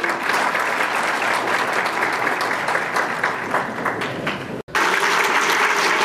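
Large audience applauding, a dense clatter of many hands clapping. About three-quarters of the way through, the sound cuts out for an instant and the applause carries on.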